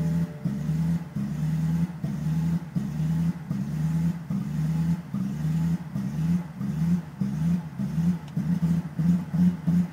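BMW 545i's 4.4-litre V8 running with a rough idle, its note dipping and recovering unevenly, more rhythmically toward the end.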